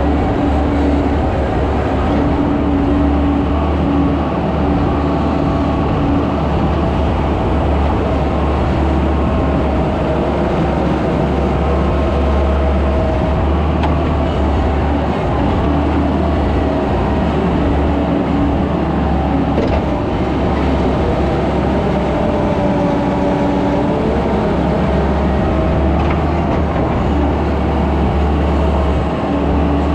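Skid steer engine running steadily, with a faint tone that rises and falls a little over the engine's low rumble.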